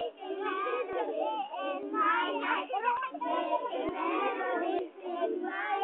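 A group of young children singing together, several voices overlapping.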